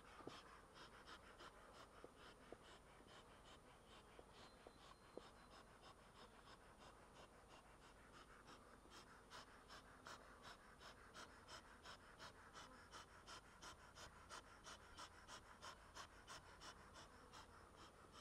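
Faint buzzing of honeybees around the opened hive, with a quick rhythmic rasping, about two or three beats a second, that grows stronger in the second half.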